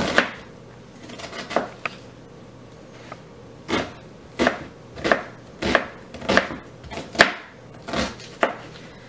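Chef's knife chopping an onion on a cutting board: about ten separate strokes of the blade through the onion onto the board. They come sparsely at first, then roughly one every half-second to second from about three and a half seconds in.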